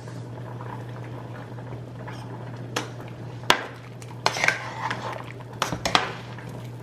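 Metal spoon stirring chunks of pork in a pot of boiling broth, clinking against the pot several times in the second half, over the steady bubbling of the broth.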